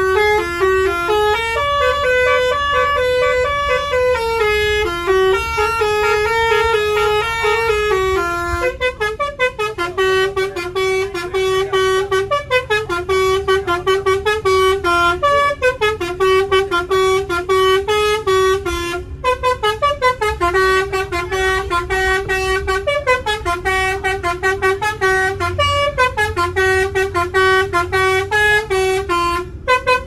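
Bus's telolet basuri musical horn playing a melody of stepped notes over a low steady rumble. About nine seconds in, the notes turn to a rapid pulsing, and a descending phrase repeats every three to four seconds.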